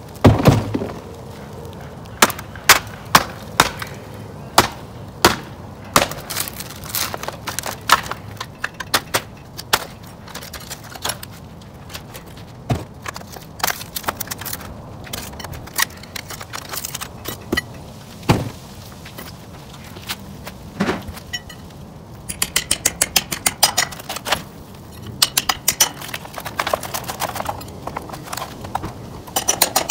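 Hand tools, a hammer and a pry bar, striking and prying at the metal flashing around a brick chimney as it is stripped off the roof: sharp, irregular metal knocks and clanks, with a heavy thump at the start. About three-quarters of the way through comes a quick rattling run of small taps.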